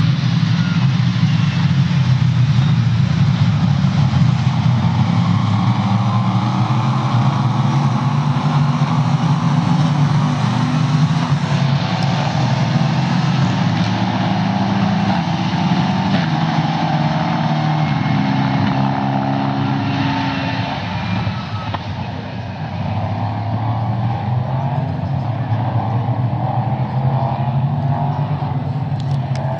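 Racing cars' engines running at high revs as they pass on a wet circuit, the note stepping up and down through gear changes, over a steady hiss of tyre spray.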